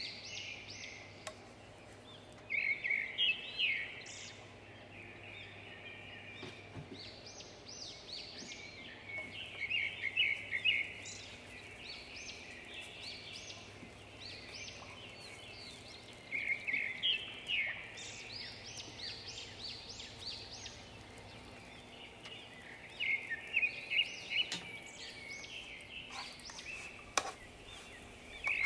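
A songbird singing: short bursts of quick, high chirps, repeated every few seconds.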